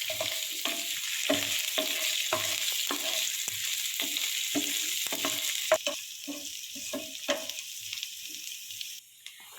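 Chopped garlic and ginger sizzling in hot coconut oil in a pan while being stirred, with the utensil scraping and knocking the pan about twice a second. The sizzle weakens after about six seconds and nearly cuts out shortly before the end.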